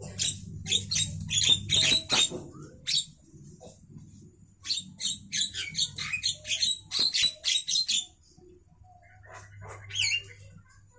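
Javan myna (jalak kerbau) calling: quick series of short, scratchy chattering notes in two bursts, the first over the opening three seconds and the second from about five to eight seconds, then a brief gliding whistle near the end. A steady low hum lies underneath.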